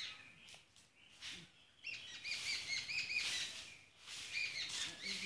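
Small birds chirping: quick runs of short, repeated, high notes, one starting about two seconds in and another near the end, after a few short clicks at the start.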